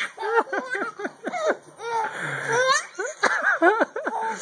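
Baby laughing hard at a fake sneeze, a rapid run of short, high-pitched bursts of laughter.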